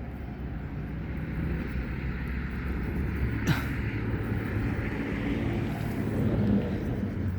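Steady low outdoor rumble, like distant traffic or wind, with one sharp click about halfway through.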